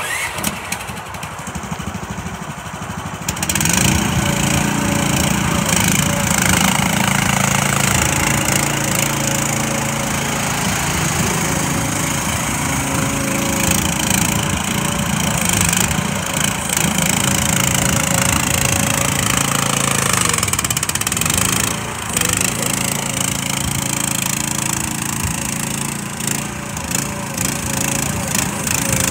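Agrotk QS12R mini excavator's small engine running under hydraulic load as the boom, arm and bucket are worked, with a steady whine over the engine note. The sound rises about three seconds in and dips briefly about three-quarters of the way through.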